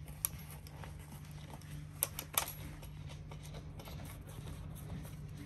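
Small metallic clicks of a screwdriver working a screw and washer into a board insert as a foot strap is fastened down: one click just after the start and a quick run of three about two seconds in, over a steady low hum.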